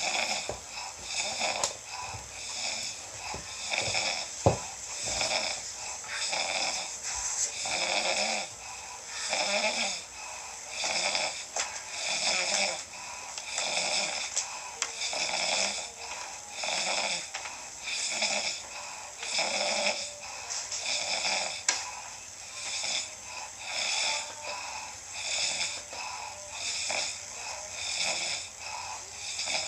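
Snoring in a steady rhythm, a snore roughly every one and a half seconds. There is one sharp click about four seconds in.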